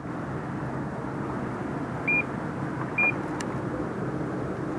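A steady, low engine drone, with two short high beeps about a second apart near the middle.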